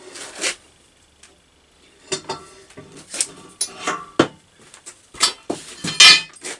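Steel tube being handled and set against metal parts: a series of irregular clanks and clinks, some ringing briefly, the loudest one near the end.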